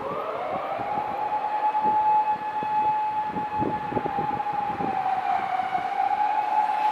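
A siren winds up over about a second to a steady single tone and holds it, sagging slightly in pitch about two thirds of the way through.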